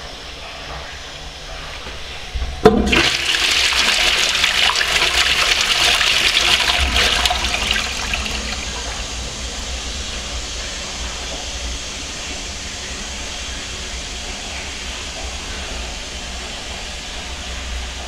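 Wall-mounted Twyford Sola toilet flushing paper away: a sharp knock about two and a half seconds in, then a loud rush of water for about five seconds, easing to a quieter steady run of water.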